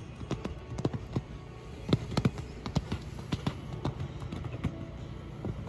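A horse's hoofbeats on the sand arena footing: a run of irregular thuds and clicks, loudest about two seconds in, over a steady low rumble.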